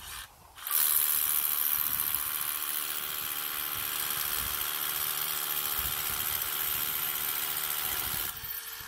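Cordless SDS hammer drill boring a 6 mm hole into concrete. After a brief blip at the start it runs steadily for about seven and a half seconds, then stops.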